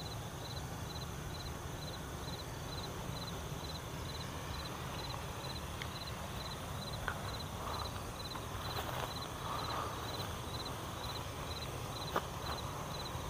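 An insect chirping steadily at night, about two high pulses a second. From about halfway through, footsteps crunch and rustle through dry grass, with a couple of sharp clicks.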